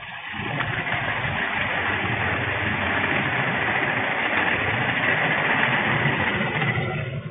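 Steady rushing rumble of a moving freight train, heard from its rearmost container wagon as the wheels run on the rails. It swells over the first second and drops away near the end.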